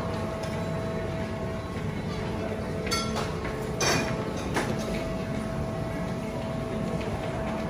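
Buffet restaurant ambience: a steady low hum with a faint constant tone, and three sharp clinks of tableware about three to five seconds in.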